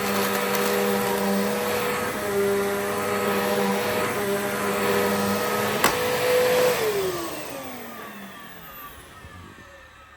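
Bissell Powerforce upright vacuum cleaner's motor running with a steady hum. About six seconds in it is switched off with a click, and the motor winds down in a falling whine that fades away.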